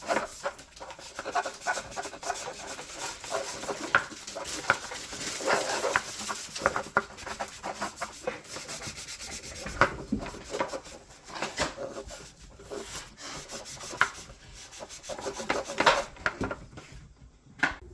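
Rubbing and scraping in quick, irregular strokes that keep on without a break, like hard scrubbing.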